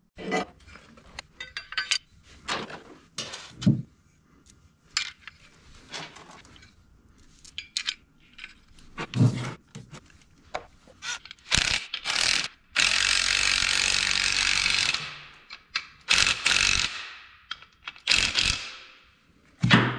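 Cordless drill/driver running on a small metal sensor bracket in several bursts, the longest about two and a half seconds, each winding down as it stops. Before that, clicks and clinks of small parts being handled.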